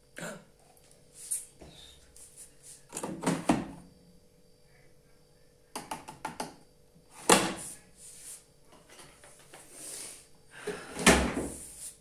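Several irregular clunks and rattles, the loudest near the middle and near the end, from the LG front-loading washing machine being handled and set up while its drum stands still. A faint steady hum runs underneath.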